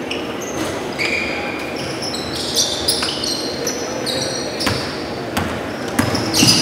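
Basketball sneakers squeaking in short, high chirps on a hardwood gym floor, with a basketball bouncing and thudding several times during play.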